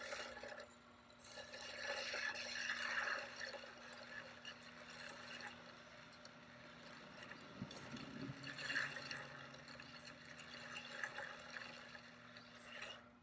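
Wet clay rubbing and sloshing under fingers at the base of a pot spinning on an electric pottery wheel, as a single edge is shaped at its foot, over the wheel's steady low hum.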